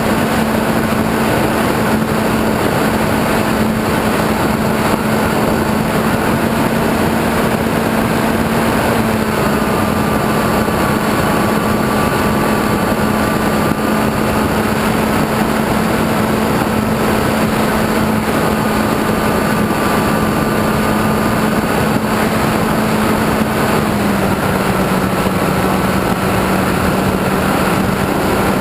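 RC airplane's motor and propeller running at steady cruise, heard from the onboard camera with wind rushing past; the hum drops a little about 24 seconds in as the throttle eases.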